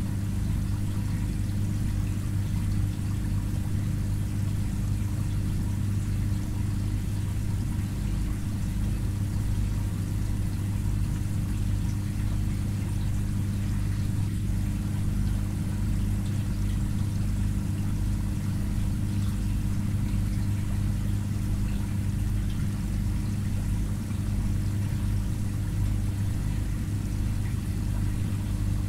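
Aquarium filter pump humming steadily, with water pouring and trickling.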